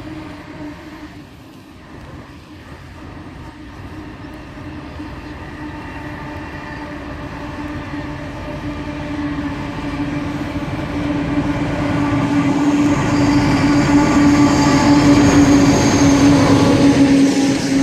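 A train approaching and passing close, its steady hum growing steadily louder throughout.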